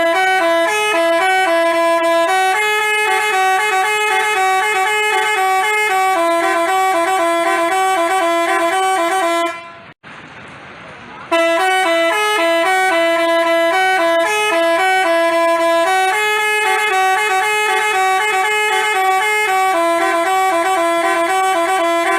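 Basuri telolet multi-tone bus horn playing a quick melody of changing notes. It cuts out about ten seconds in for just over a second, then starts up again.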